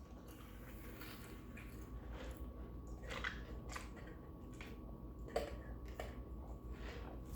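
A person chewing a fried chicken sandwich close to the microphone: soft mouth sounds with irregular small clicks.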